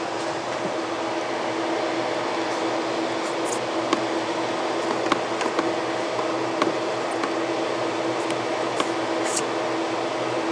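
HP ProLiant server booting, its cooling fans running with a steady rush and a constant hum, mixed with the fan of a DTS projector resting on top of it. A few faint ticks come through the noise.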